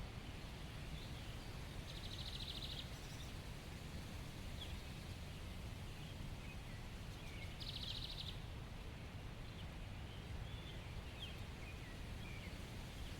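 Small songbirds chirping with scattered short high notes, plus two brief rapid buzzy trills, one about two seconds in and one near the middle, over a steady low outdoor rumble.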